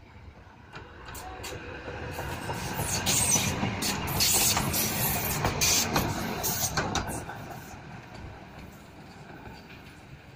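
Schindler Be 4/6 S articulated tram passing close by on its rails: its running noise builds over a few seconds, peaks with a run of sharp clicks and hiss as it goes past, then fades as it moves away.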